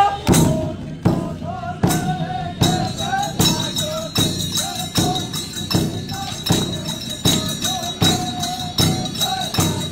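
Music with a steady beat of sharp percussion strokes, a little over one a second, under a wavering melodic line.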